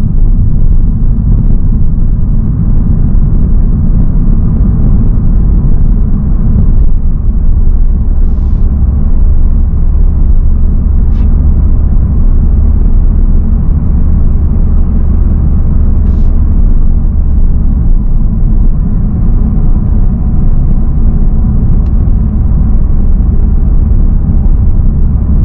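In-cabin running noise of a Honda Civic Type R (FL5) with its 2.0-litre turbocharged inline-four, driving on a mountain road: a steady loud low rumble of engine and tyres. A deeper hum joins in from about seven to eighteen seconds in, and a few faint brief ticks sound.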